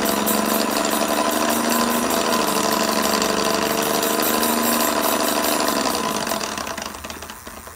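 Bafang geared rear hub motor of a RadRunner 1 e-bike running on pedal assist with the wheel spinning freely, a steady whir mixed with a harsh rattling grind, winding down near the end. The owner takes the rattle for a motor fault, either rattling or grinding gears inside the hub.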